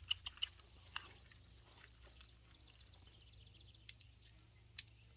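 Quiet outdoor ambience: a few sharp light clicks in the first second and two fainter ticks later, with faint bird chirps in the background.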